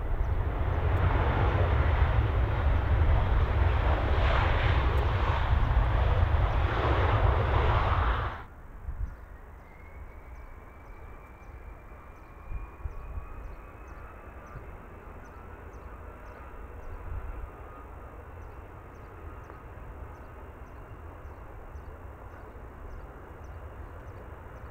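An Airbus A321's twin jet engines running at high power as it rolls along the runway, a loud steady rumble that cuts off suddenly about eight seconds in. Then a Fokker 100's Rolls-Royce Tay turbofans run much more quietly as it moves slowly on the runway, with a thin whine slowly rising in pitch.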